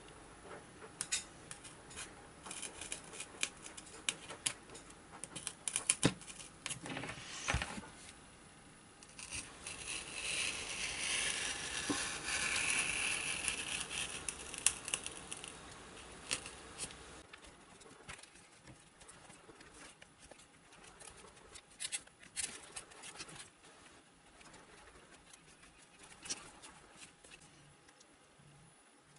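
A thin metal tube rasping and scraping as it is worked through a foam plane fuselage, with scattered small clicks of handling. The longest scrape comes about nine seconds in and lasts several seconds; near the end only faint clicks remain as a thin wire is threaded through.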